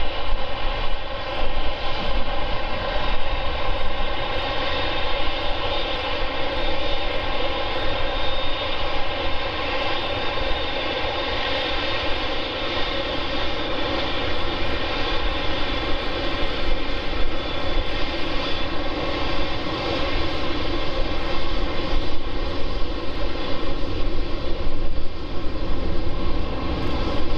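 Boeing 747-8F freighter taxiing on its four GE GEnx turbofans: a steady jet whine with several held tones over a low rumble, growing a little louder and rougher near the end.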